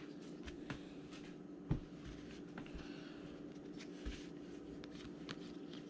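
Baseball trading cards being handled and laid onto piles on a table: faint slides and light taps, with a couple of sharper taps about two and four seconds in, over a faint steady hum.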